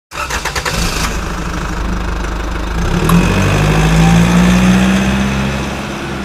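Motorcycle engine sound effect: a few quick rattling clicks in the first second, then a steady engine note that swells about three seconds in and slowly fades near the end.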